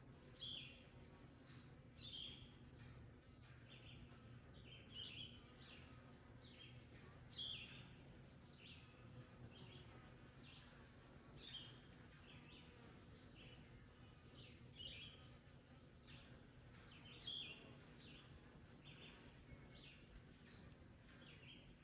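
Faint bird chirps, short and high, repeating about once a second over a low steady background hum.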